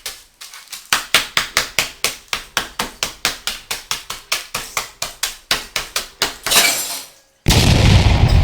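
Chocolate teddy bear biscuits in a zip-lock bag being pounded to crumbs with rapid, even blows, about five a second, with a short pause just after the start. Near the end the pounding stops, and after a brief silence a loud rough rumbling noise begins.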